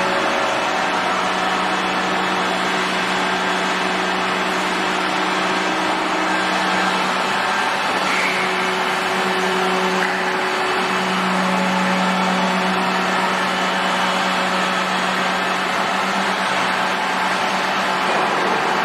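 Three-axis gun drilling machine running: a steady mechanical hum with a constant low note and an even hiss over it, unchanging throughout.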